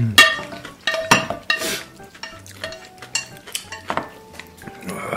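Wooden spoon stirring noodles in a glass bowl and a frying pan being scraped into a bowl: irregular clinks of utensils against glass and metal, with a short scrape about one and a half seconds in.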